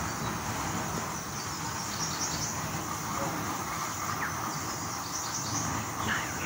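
Steady forest ambience: a constant high insect drone over a low even hiss, with a few short bird chirps near the end.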